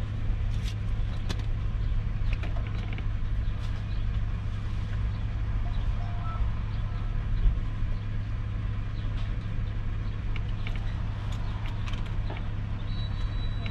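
Lexus LS400's V8 idling steadily, heard from inside the cabin, with a few small scattered clicks.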